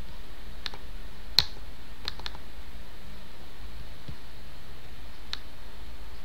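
Computer mouse clicks, about half a dozen short sharp ones, the loudest about a second and a half in and a quick double click near two seconds, over a steady low hum.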